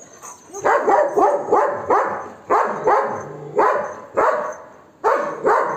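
Golden retriever barking aggressively in a rapid run, about two barks a second, starting about half a second in: alarm barking up at monkeys in a tree to chase them away.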